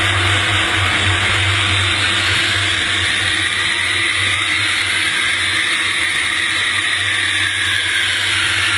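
Jet airliner rolling on the runway, heard from beneath the fuselage by its main landing gear: a loud steady rush of engine and air noise over a low hum. From about halfway through, an engine whine falls steadily in pitch.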